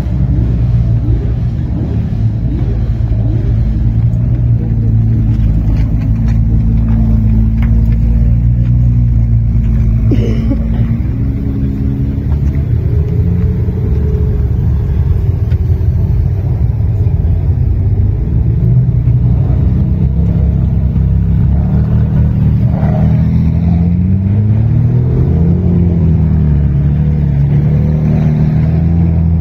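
Several Ferrari supercar engines running at low revs as the cars crawl past one after another, the exhaust note shifting in pitch with small throttle changes and rising near the end.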